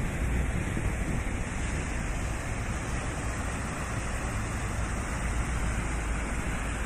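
Steady rushing and splashing of a large plaza fountain, its jets and cascade pouring over the basin rim, over a low city rumble.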